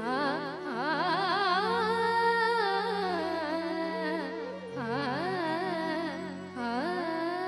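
A woman singing an Odia devotional bhajan in a classical style, with quick, wavering ornaments in the melody, over a steady drone accompaniment.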